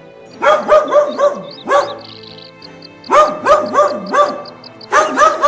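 A dog barking in quick runs of about four sharp barks, three runs with a single bark between the first two, over background music.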